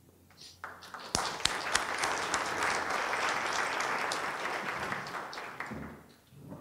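Audience applauding: clapping starts about a second in, holds steady, and dies away near the end.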